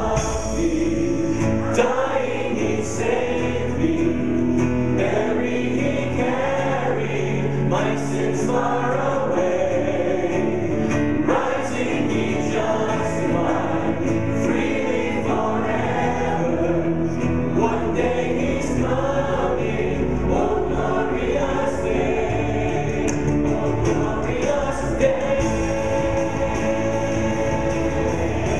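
Church choir singing a gospel worship song with a live band of guitars, drums and piano.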